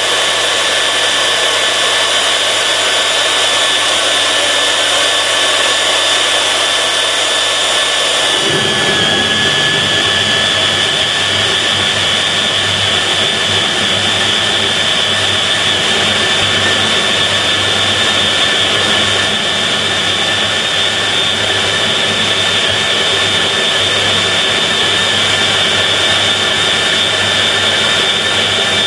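FEIN KBM 50 Auto magnetic core drill running steadily with a high motor whine as its automatic feed drives a 50 mm core cutter. About eight seconds in the sound turns rougher and the motor note dips slightly as the cutter takes load in the plate.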